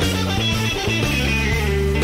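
Background music led by guitar, with steady bass notes underneath and some upper notes that bend in pitch.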